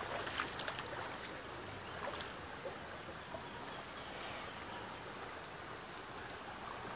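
Shallow river running over stones: a steady rush of flowing water, with a few faint clicks in the first second.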